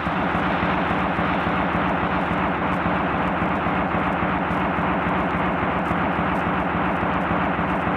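Intro of a hardcore techno track: a dense, steady noise drone that cuts in suddenly, with a fast flutter in the low end and no beat yet.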